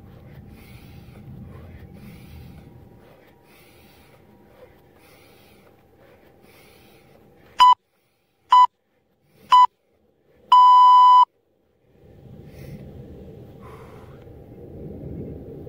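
Interval timer beeping: three short beeps about a second apart, then one longer beep. It is a countdown marking the switch between work and rest intervals.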